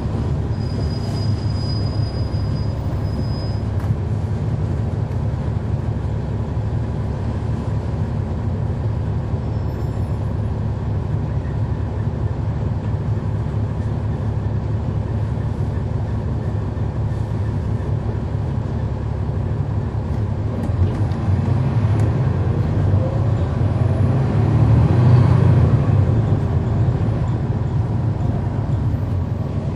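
Cummins ISL9 six-cylinder diesel engine of a 2011 NABI 40-foot transit bus, heard from inside at the rear of the bus, running with a steady low rumble. About two-thirds of the way through it grows louder with a rising pitch as the bus pulls away or picks up speed, then eases off.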